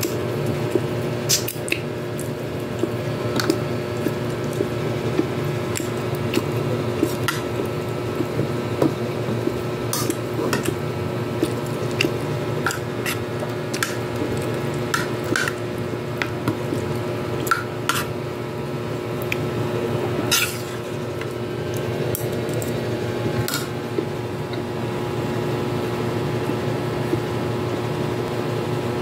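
Metal spoon scraping and clinking against a plate while rice is scooped up and eaten. The sharp clinks are scattered and irregular, over a steady hum.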